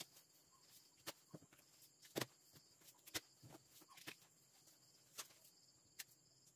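Near silence with a few faint, short taps about a second apart, the loudest about two seconds in: paper cutouts being pressed and stuck onto a wall.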